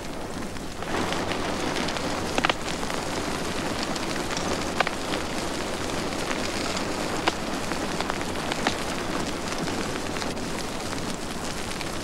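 Forest fire burning: a steady rush of flames with crackling and occasional sharp pops of burning wood, growing a little louder about a second in.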